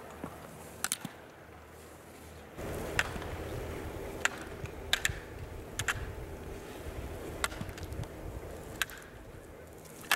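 Slalom gate poles being struck by a ski racer's body and arms as he passes through the gates: sharp plastic knocks about every second or so, over a steady hiss that grows louder a couple of seconds in.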